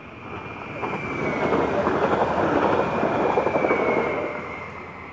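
Electric multiple-unit passenger train passing close by, its wheels clattering over the rails. The clatter swells about a second in and fades near the end, with a thin high whine above it.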